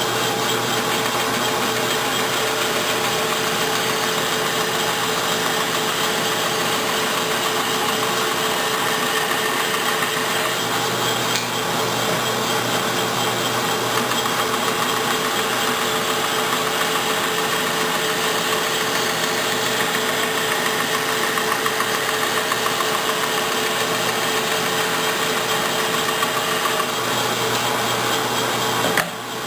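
Bandsaw running and its blade cutting through a wooden block: a steady motor tone under the cutting noise. The sound dips for a moment near the end.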